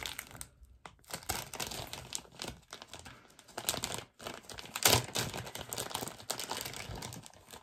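Clear plastic treat bag crinkling as it is opened by hand to get at the wax melt inside. The crackles come irregularly, with the loudest about five seconds in.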